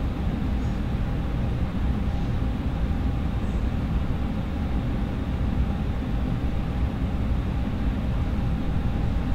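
Steady rush of air drawn through a ceiling return-air grille and 5-inch filter with the HVAC blower running, with a faint steady hum beneath it. The return is running quietly after the filter grille was replaced, measuring about 49 to 51 dB at the grille.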